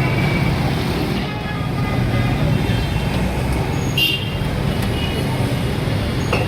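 Busy street ambience: a steady low rumble of road traffic with faint voices in the background, and a short sharp clatter about four seconds in.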